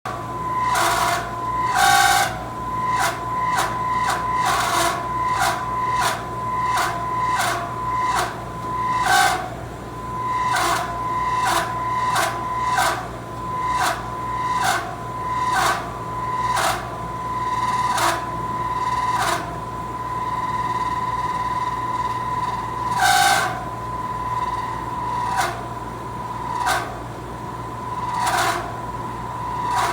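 An HVAC compressor running with a steady hum and a high whine, broken by irregular sharp knocks about once or twice a second, with fewer knocks for a few seconds about two-thirds of the way through. These are really bad noises, the sign of a compressor in trouble.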